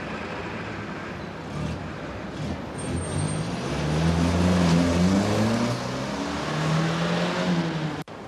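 Street traffic, with van engines driving past; one passes close, loudest about four to five seconds in, its engine pitch rising and falling as it goes by. The sound cuts off sharply near the end.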